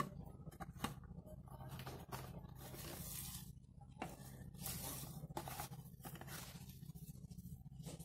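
Handling noise of unboxing a watch: a cardboard box and a round plastic watch case knocked and shuffled, with sharp clicks and a few longer bursts of paper and cardboard rustling as the case and a paper warranty card are pulled out. A steady low hum runs underneath.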